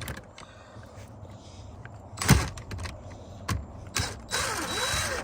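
Steering wheel hub parts being handled and fitted: a few sharp knocks, the loudest about two seconds in, then about a second of scraping and rattling near the end.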